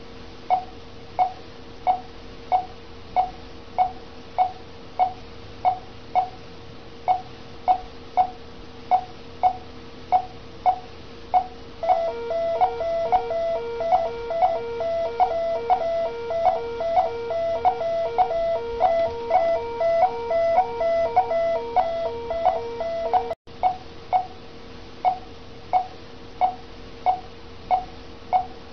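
Patient monitor beeping in time with the pulse, one short tone roughly every 0.6 seconds, over a steady hum. From a little before halfway to about four-fifths through, a faster repeating alarm tone sounds on top and then cuts off suddenly.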